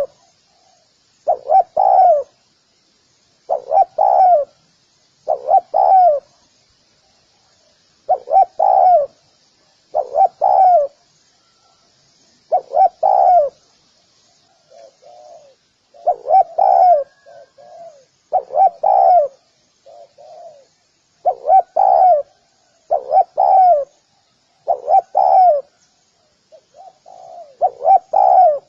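Spotted dove cooing: a run of short two- to three-note coos repeated about every second and a half to two seconds, with a few quieter coos in between.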